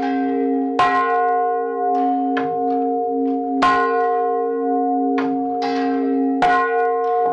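Rope-swung church tower bell ringing, its clapper striking the bell several times, with a few strokes louder than the rest, and the tone ringing on steadily between strokes.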